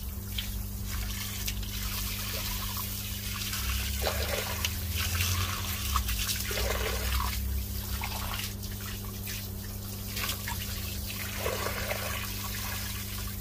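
A stream of water splashing into a concrete drain gully and over the mouth of a drain pipe fitted with a rat non-return valve, rinsing it out. The splashing swells and fades unevenly.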